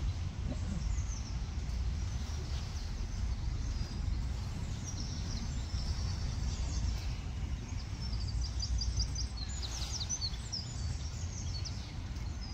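Small birds chirping and singing, with a quick run of short high notes about two-thirds of the way through, over a steady low rumble.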